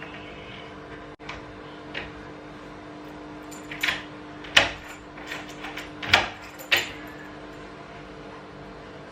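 A few sharp knocks and clacks, about five of them between roughly four and seven seconds in, over a steady low hum.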